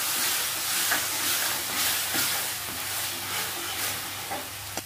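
Onions and ginger-garlic paste sizzling in hot oil in an aluminium kadai while a steel ladle stirs and scrapes them round the pan, sautéing off the raw smell of the paste. The sizzle gets quieter near the end.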